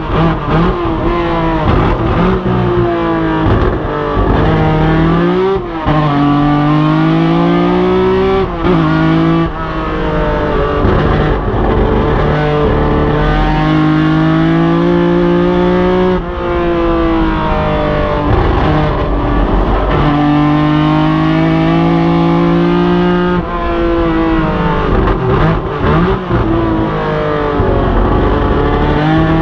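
BMW 3.0 CSL race car's straight-six engine at full racing effort, heard from the cockpit: it revs up hard through the gears and drops back sharply at each shift and braking zone, again and again.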